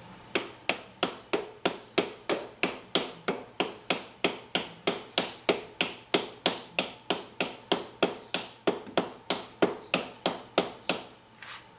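A hammer tapping a bronze bushing into the bore of a 1943 Ford 9N tractor's governor arm: even metal taps, about three a second, that stop near the end.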